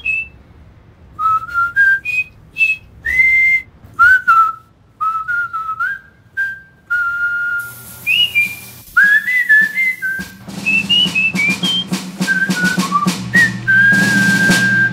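A person whistling a tune in short single notes, many sliding up into pitch, with light clicks behind.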